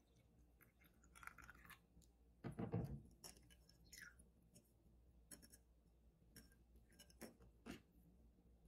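Faint handling sounds of lemonade being strained over ice: a short trickle of liquid through a metal mesh strainer into a glass, light clicks of the strainer and glass, and one soft thump about two and a half seconds in, the loudest sound.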